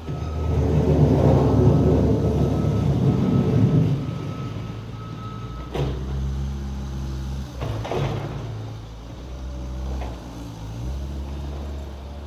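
Skid steer engine running under load, louder for the first few seconds with a thin steady high whine over it, then easing off. Several sharp knocks come in the second half.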